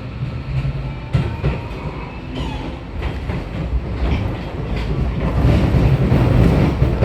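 Running noise heard inside the cabin of a Keio 8000 series refurbished electric train with permanent-magnet-motor IGBT-VVVF traction: steady wheel and track rumble with clicks over rail joints, growing louder near the end.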